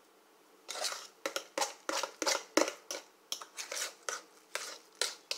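Metal utensils scraping and tapping against a bowl and a glass baking dish as mashed potatoes are scooped out and dabbed into place. It comes as a quick run of short scrapes, two or three a second, starting about a second in.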